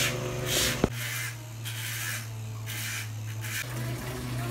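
A steady low machine hum, with several bursts of hiss and a single sharp click about a second in.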